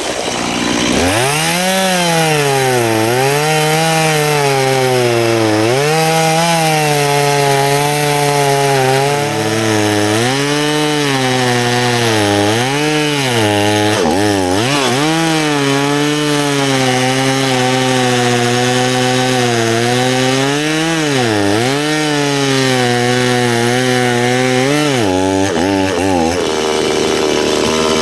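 Gas chainsaw throttled up about a second in and cutting through a tree trunk. Its pitch dips again and again as the chain loads up in the wood and then recovers. About three seconds before the end it drops back to idle.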